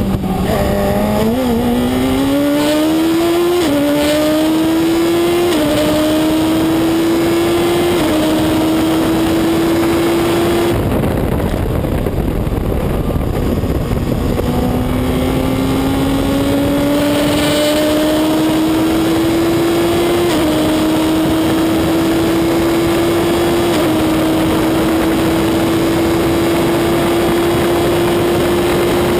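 Reynard Inverter sports racer's motorcycle-derived Suzuki four-cylinder engine, heard from the open cockpit, accelerating hard through the gears: the note climbs and steps down at three quick upshifts. About 11 s in the driver lifts off for a few seconds, then the engine pulls again, climbing through two more upshifts.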